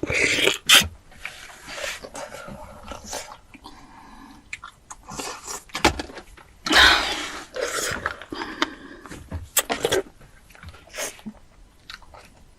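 A person crunching and chewing a spicy tortilla chip close to the microphone, in irregular bites and mouth sounds, with a louder breathy burst about seven seconds in.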